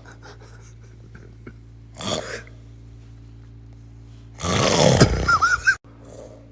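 A man snoring in his sleep: a short snore about two seconds in, then a much louder, longer snore from about four and a half seconds that cuts off abruptly.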